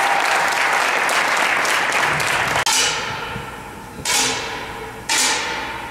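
Audience applauding, cut off abruptly about two and a half seconds in. Then two sharp cracks about a second apart, each dying away in a reverberant hall.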